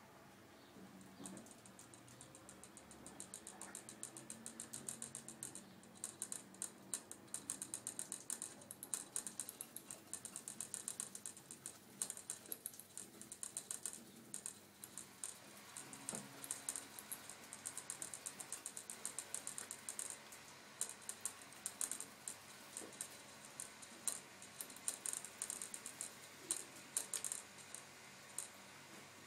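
Gerbil drinking at the metal spout of a cage water bottle: rapid runs of sharp ticks from tongue and teeth working the drinking tube, broken by short pauses.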